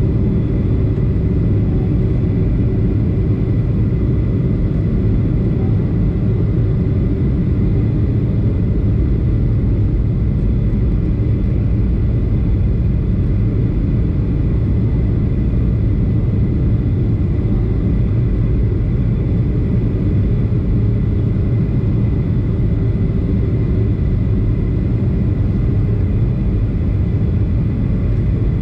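Cabin noise of a Boeing 737-500 heard from a window seat on approach: a steady low rumble of its CFM56-3 turbofan engines and airflow, with a faint steady whine above it.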